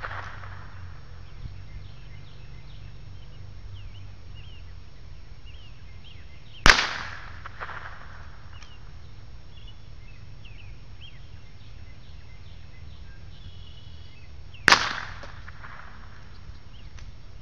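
Two gunshots about eight seconds apart, each a sharp crack with a short trailing echo and a fainter report about a second later. Faint birdsong chirps in between.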